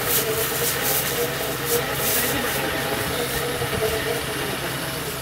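UAZ off-road vehicle engine running steadily at low revs, with a scratchy hiss that comes and goes over it in the first half.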